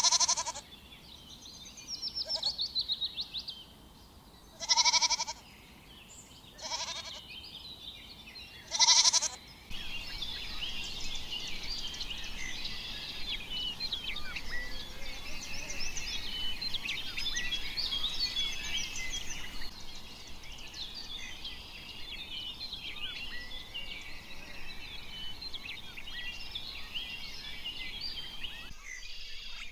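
Goat bleating several times in the first ten seconds, short quavering calls. Then a long, steady stretch of many small high chirps and squeaks.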